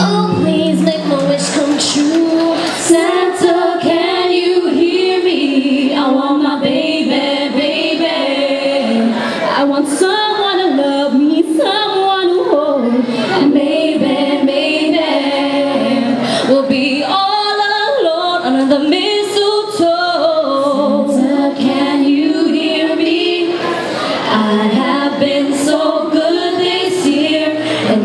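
A group of teenage girls singing a Christmas pop song together into handheld microphones, one continuous sung passage without a pause.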